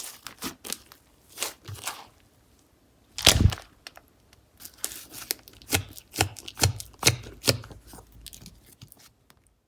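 Slime being squished and stretched by hand, giving a string of sticky pops and clicks, with the loudest pop about three seconds in and a quicker run of pops from about five to eight seconds.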